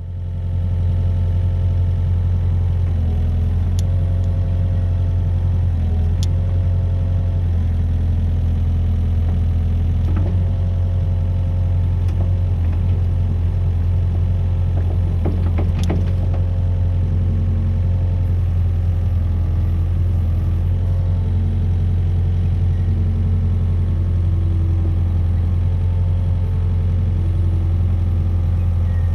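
Kobelco SK45 mini excavator's diesel engine running steadily with a strong low hum. Tones above the hum shift in pitch every few seconds, and a few sharp clicks come through, the loudest cluster about halfway.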